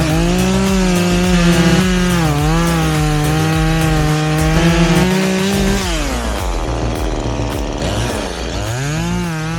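Chainsaw engine running at high revs, its pitch dipping briefly as it bogs in the cut. At about six seconds the pitch drops off, and it revs back up near the end.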